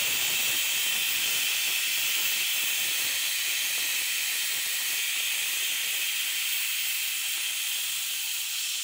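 Pressure cooker blowing its whistle: steam venting past the weight in a loud, steady hiss. This is the second whistle, the sign that the rice inside is cooked.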